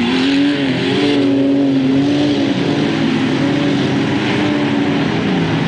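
Junk cars' engines running and revving on a dirt short track, several engines overlapping with their pitch rising and falling.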